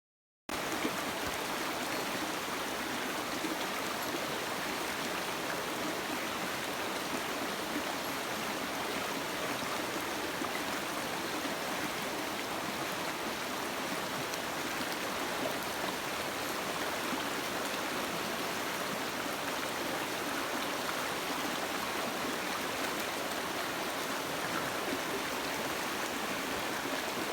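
Steady rush of a mountain stream's water flowing over rocks, cutting in abruptly about half a second in and running on at an even level.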